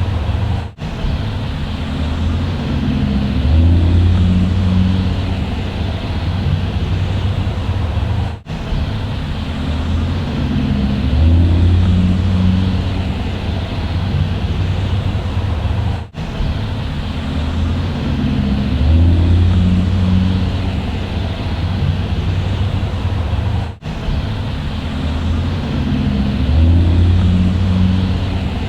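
Bus engine running with a steady low rumble that swells louder and eases back every few seconds. The same short stretch repeats about every eight seconds, with a brief dropout at each join.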